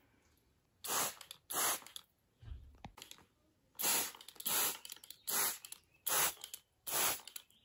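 Hand trigger spray bottle squirting soapy water onto plant leaves: about eight short hissing sprays, roughly one a second, with a pause about two seconds in.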